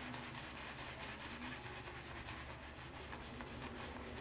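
Shaving brush working hard-soap lather on a face: a faint, steady wet crackling and brushing of bristles in foam, over a low steady hum.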